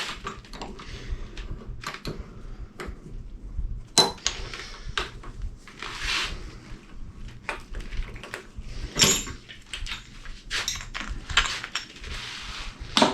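Glass doorknobs and their metal hardware being handled on a workbench: scattered clinks, knocks and clatter, with one short scrape about halfway through.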